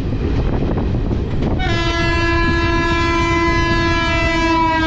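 Locomotive horn of an oncoming train blowing one long blast, starting about a second and a half in, its pitch dropping near the end as it passes. Under it runs the steady rumble of the moving passenger train.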